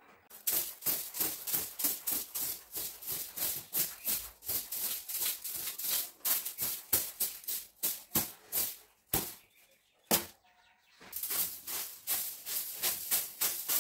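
Brisk brushing or sweeping strokes across a bed sheet, several a second, pausing for a moment about nine seconds in.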